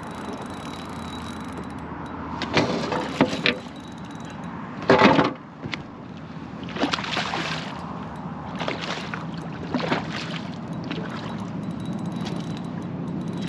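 Water sloshing and splashing around a kayak over a steady wind hiss, with several louder splashes about two and a half, five, seven and ten seconds in.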